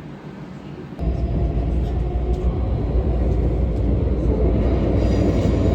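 A train running, with a loud, steady low rumble that starts abruptly about a second in.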